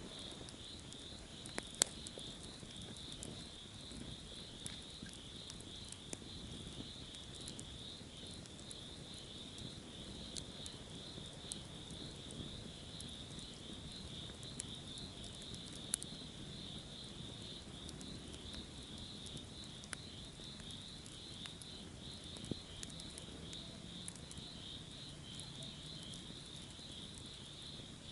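Steady high-pitched insect chorus, a continuous shrill buzz, with occasional sharp crackles and pops from a campfire, the loudest about two seconds in and again about halfway through.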